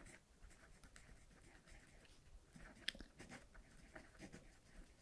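Faint scratching of a pen writing on a paper page, in short strokes with small ticks, one a little sharper about three seconds in.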